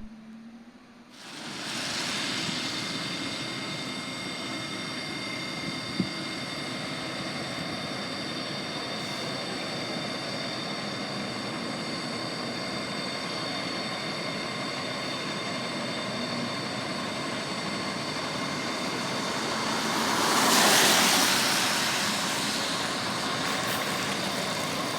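Steady vehicle engine noise with a few faint, high steady whines, swelling for a couple of seconds about twenty seconds in.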